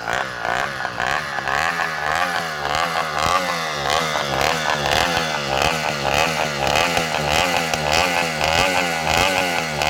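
Two-stroke kit engine of a motorized bicycle, running loud through its bare exhaust pipe and revved up and down in quick repeated blips of the throttle.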